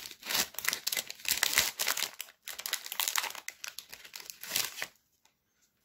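Foil Pokémon booster pack wrapper crinkling as it is torn open and the cards are pulled out. It stops suddenly about five seconds in.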